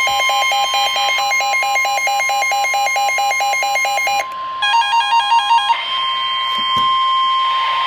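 Emergency Alert System alert tones: a steady high-pitched alarm tone with a fast beeping alert of about four beeps a second layered over it. About four seconds in it breaks off briefly, a short burst of different beeping follows, then the steady tone sounds alone to the end.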